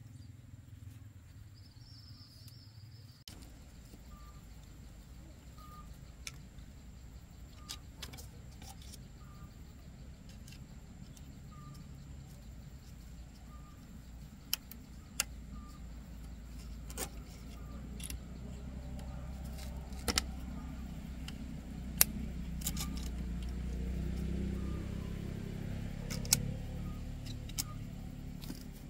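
Pliers twisting and clipping steel tie wire around bamboo poles, with scattered sharp metal clicks and snaps. A low rumble swells in the background through the middle and fades near the end.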